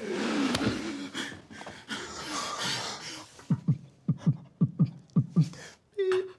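Mouth sound effects made by a human voice: a loud hissing rush for about three seconds, then a quick run of about eight low, dropping thuds.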